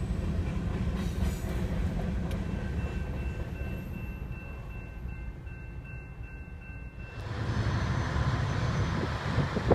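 Freight train's last cars rumbling over a level crossing and fading away, then the crossing's warning bell ringing on steadily. About seven seconds in, this cuts off abruptly and a broad rushing noise takes over.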